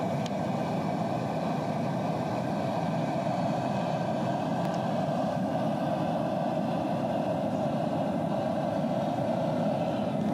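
Propane jet burner of a turkey fryer burning steadily under a stockpot of oil as it heats: an even, unbroken rush of flame.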